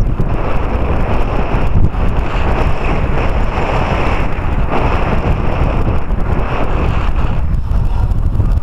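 Wind buffeting the camera's microphone: a loud, unsteady rumble with hiss, without distinct knocks.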